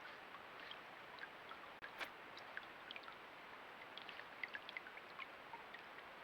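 Faint steady hiss of running water, dotted with many small wet clicks and ticks, with one sharper click about two seconds in.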